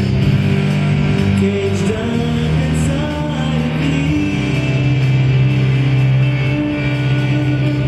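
Live electronic music: held low bass notes that shift in pitch every second or two, with fainter sustained tones above them.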